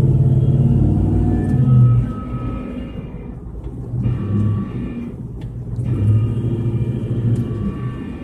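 A 2004 Ford F-150's 9.75-inch rear differential whining under the low rumble of the truck driving, heard from inside the cab. The whine comes and goes as the gears load and unload on and off the gas. It is the sign of excessive ring-and-pinion backlash, which the mechanic judges as a lot of play.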